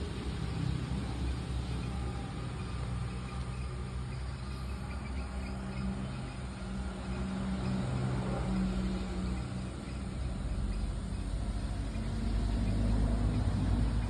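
Low rumble with a wavering hum, getting louder near the end.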